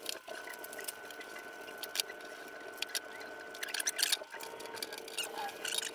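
Black vinyl wrap film crackling and squeaking as it is smoothed down and trimmed over a flat panel, in scattered clusters of crisp clicks, with a faint steady hum underneath.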